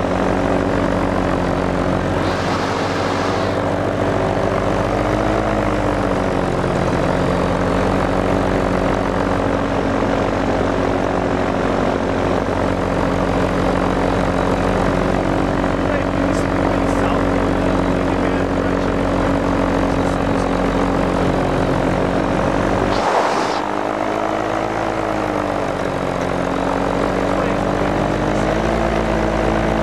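Small propeller-driven aircraft engine running steadily, heard from on board, its note dipping and rising briefly a few times as the throttle changes. A short rush of wind noise comes about three-quarters of the way through.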